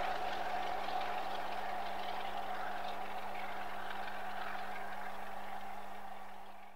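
A train running: a steady rushing rumble with a constant mid-pitched tone, fading out right at the end.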